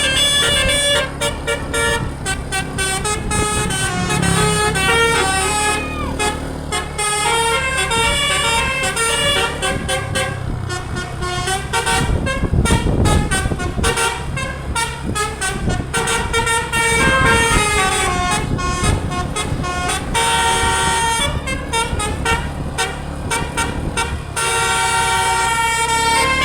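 A tour bus's 'telolet basuri' musical air horn (DAV Musical Airhorn) playing a string of multi-note tunes that step up and down in pitch, over a running vehicle. About twelve seconds in there is a stretch of rushing noise.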